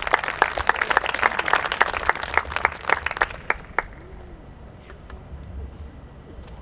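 An audience clapping, the claps thinning out and stopping about three and a half seconds in.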